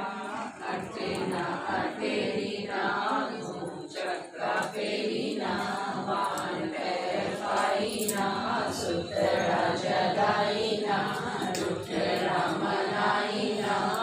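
A group of women singing a devotional puja song together, a chant-like tune sung in unison.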